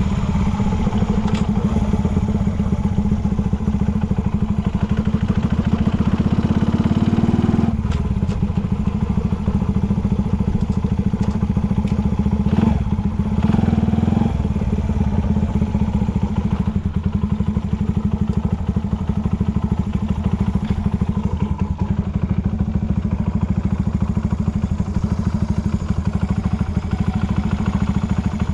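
Honda Ape 50's single-cylinder four-stroke engine, bored up with a Takegawa kit, idling steadily through a short exhaust pipe, with two brief throttle blips, the first about six seconds in and the second about twelve seconds in. It runs with no abnormal noises.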